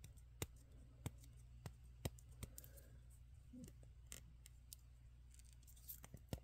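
Faint, scattered small clicks and ticks of hands working electrical tape around a GI Joe muscle body's plastic leg parts, over a low steady hum.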